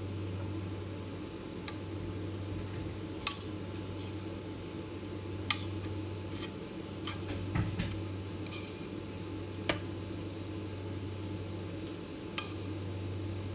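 Utensils clinking against dishes: about half a dozen sharp, separate clinks spread over several seconds, over a steady low hum.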